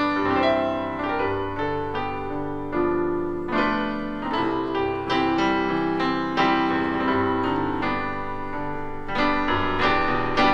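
Piano music: chords and melody notes struck every second or so and left to ring.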